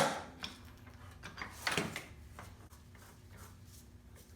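A few light knocks and scrapes of metal engine parts and tools being handled, the loudest a little under two seconds in, after the dying ring of a sharp hammer-like blow at the very start.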